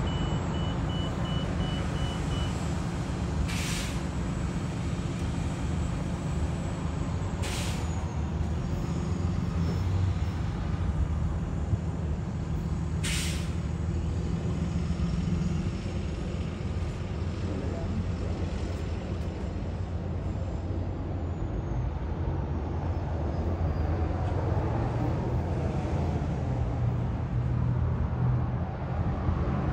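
Sounder commuter train's diesel locomotive running with a steady low rumble as the train pulls away, broken by three short, sharp hisses of air, the loudest sounds, in the first half. A rapid high beeping sounds for the first couple of seconds.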